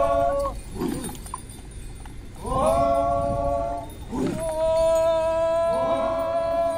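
A group of men's voices chanting together in long held calls of a Phom Naga warrior dance. There are three calls, each swooping up into a steady note that is held for one to two seconds, with short breaks between them.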